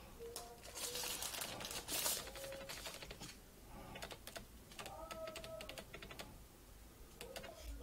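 A thin low-density polyethylene (LDPE) plastic sleeve crinkling and rustling as it is handled and pulled off a power bank, with a run of small crackles and clicks.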